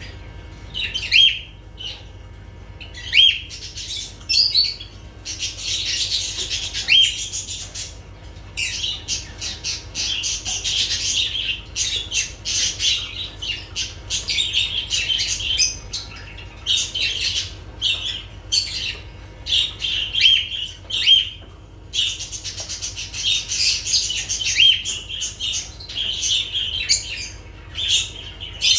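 Pet lovebirds chattering, with a dense, continuous mix of shrill squawks and chirps, many short sharp notes and a few rising calls.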